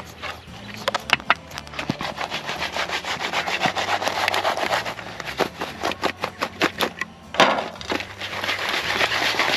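Baked empanadas being stirred and tossed in cinnamon sugar in a plastic bowl: quick rattling knocks of the pastries against the bowl and each other, then, from about seven seconds in, a steady scraping rustle as the bowl is shaken.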